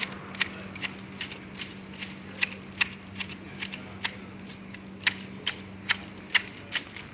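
Pruning shears snipping foliage in a quick, uneven run of sharp clicks, about two or three cuts a second.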